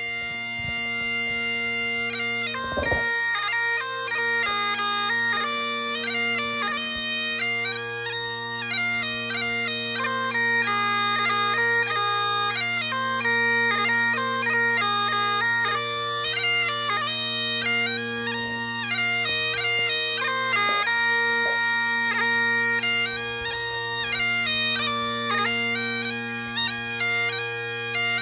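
Great Highland bagpipes playing: the drones hold a steady chord under the chanter, which opens on one held note and then runs into a quick, ornamented march melody.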